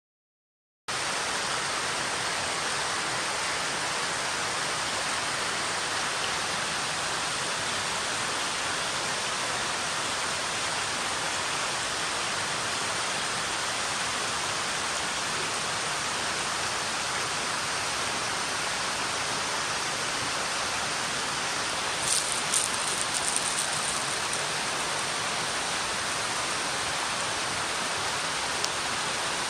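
Small mountain stream rushing over rocks, a steady even rush of water. About three-quarters of the way through, a brief cluster of very high chirps sounds over it.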